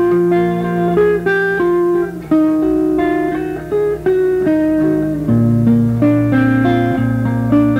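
Two guitars improvising an instrumental together: picked melody notes that change every fraction of a second over held low bass notes.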